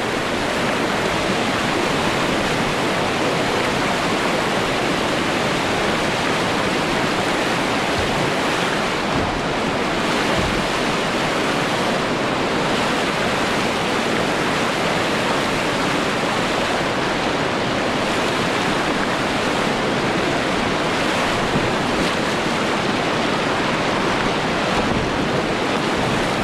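Class 3 whitewater rapids rushing steadily, a dense and unbroken sound of moving water.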